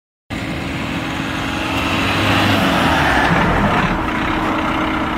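Renault Duster's 1.5-litre diesel engine running with steady road and wind noise, cutting in abruptly and growing a little louder about two seconds in.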